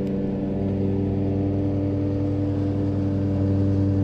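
A machine running with a steady, even hum at constant speed.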